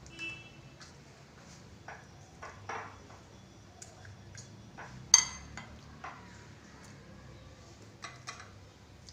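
A metal spoon tapping and scraping against a dish while egg stuffing is spooned into crisp puri shells: scattered light clicks, with one sharp, ringing clink a little past halfway.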